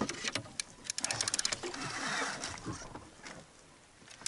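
Fishing reel being cranked against a hooked fish: a rapid mechanical clicking that thins out and fades almost to silence near the end.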